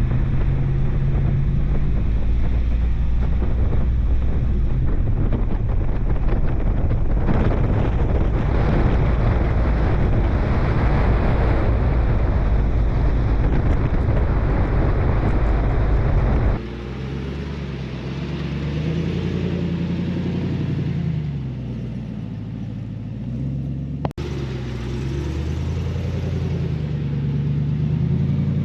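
Pickup truck driving on a rough road or trail: steady engine and road rumble. About two-thirds of the way through it changes abruptly to a quieter run, with the engine pitch rising and falling.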